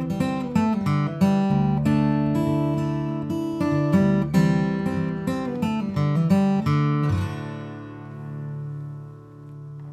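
Background acoustic guitar music: quickly picked notes that give way about seven seconds in to a single low held note that slowly fades.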